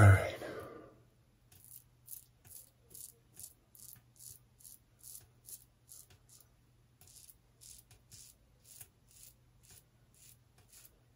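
Rockwell 6C double-edge safety razor with an Astra blade scraping across stubble in quick short strokes, about two to three a second, with a brief pause just past halfway. It is a touch-up pass over missed spots, on skin not wetted first.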